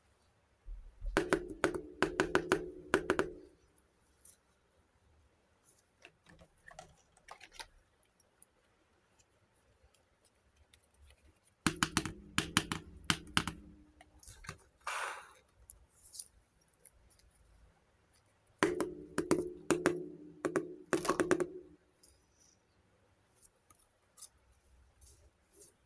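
Small plastic miniature toy kitchen pieces handled, clicking and tapping together in three quick bursts of rapid clicks, with a short scrape about 15 seconds in.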